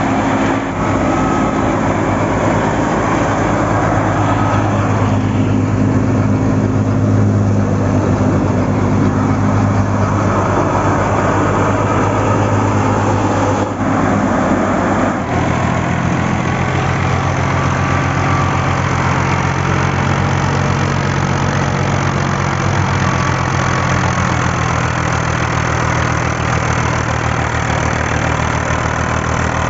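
Fiat 480 tractor's three-cylinder diesel engine running steadily under load, driving a wheat thresher through a shaft, with the thresher's machinery running alongside. The engine note shifts to a different steady pitch about halfway through.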